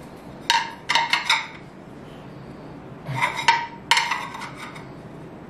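Glass hexagonal mirror tiles of an IKEA Hönefoss set clinking and tapping against each other and the wall as the last tile is fitted, in four short clusters of sharp clicks with a brief ring.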